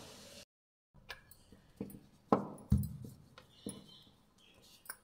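Scattered knocks and taps of a wooden rolling pin and hands working dough on a marble rolling board, two of them louder in the middle, after a brief dropout to total silence near the start.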